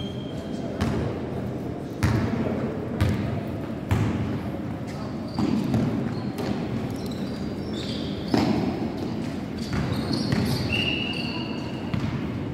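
Basketball bouncing on a gym floor during play, sharp thumps roughly once a second, echoing in a large sports hall, with a few short high squeaks and background voices.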